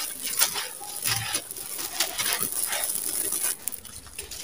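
Dry, dusty sand-cement crumbling in a hand, the grit pouring down in a stream of fine crackles and patters onto a gravelly heap.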